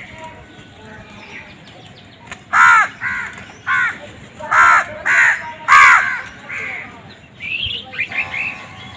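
Crow cawing: a run of about seven loud, harsh caws in quick succession starting a couple of seconds in, then softer, quicker calls near the end.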